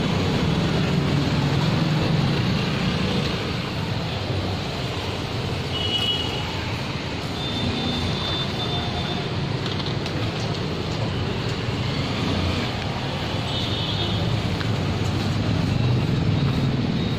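Steady street traffic noise, with a few brief high-pitched chirps now and then.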